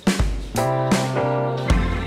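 Background music: a light pop track with guitar and keys over a steady drum beat.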